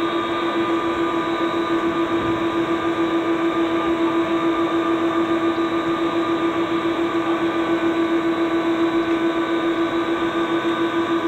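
KC-135 jet engines running, heard from inside the cabin: a steady drone with a strong low hum and several higher steady whining tones, pulsing rapidly about five times a second.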